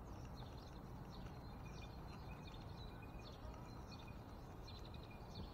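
Faint songbird chirping, many short calls scattered throughout, over a low steady background rumble.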